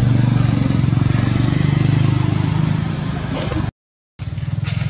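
An engine running steadily with a low, even hum. It cuts out completely for about half a second near the end, then carries on.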